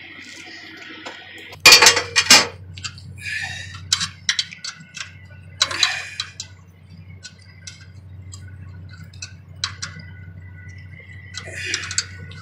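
Metal hand tools clanking and clinking as a wrench is picked up and set against a steel battery lock bar: a loud clatter of three or four knocks about two seconds in, then scattered lighter clinks and taps over a steady low hum.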